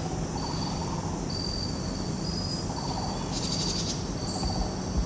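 Insects chirping in short, high, repeated trills, over a low steady hum.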